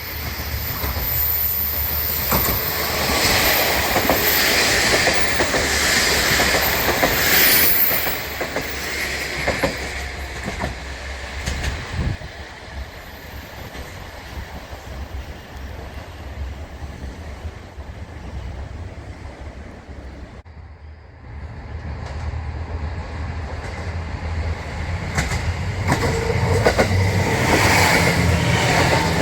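A rail vehicle running on track, with wheel-on-rail clatter. It is loudest in the first eight seconds, quieter through the middle, and cuts off sharply about twenty seconds in. Then a second passage builds up toward the end.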